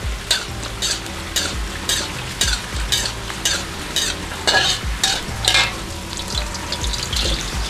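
Garlic, kencur and curly red chillies sizzling in hot oil in a steel wok, stirred with a metal spatula that scrapes the pan in repeated strokes, a few a second.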